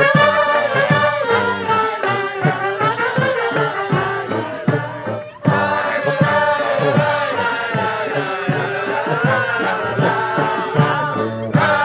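Klezmer band playing a tune: several pitched melody lines over a regular drum beat, with a short break about five seconds in before the band comes back in.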